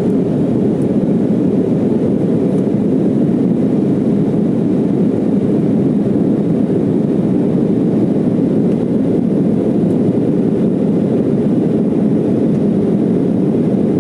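Jet airliner's engines and airflow heard from inside the passenger cabin during the climb after takeoff: a steady, even low rumble.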